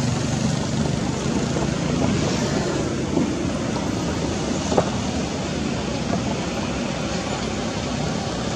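Steady outdoor background rumble and hiss, with one faint click about five seconds in.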